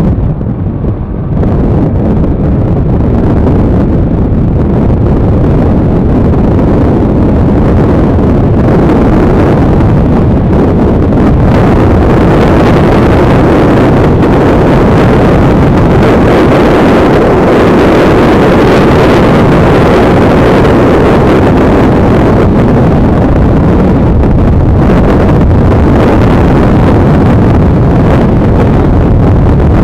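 Heavy, steady wind rushing over the microphone of a motorcycle cruising at highway speed, with engine and road noise mixed in underneath.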